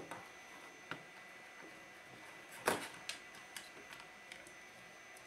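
Circuit boards and wiring of a disassembled Kenwood amplifier being handled and shifted on a table: scattered light clicks and knocks, with one louder knock about two and a half seconds in.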